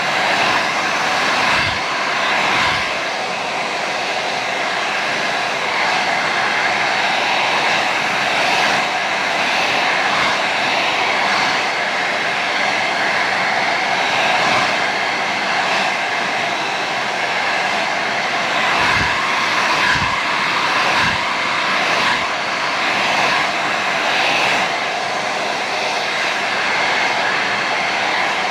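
Hot & Hotter 1875 Professional hair dryer running steadily on its highest heat setting, a loud continuous blowing. A few brief low thumps come through about two seconds in and again around twenty seconds.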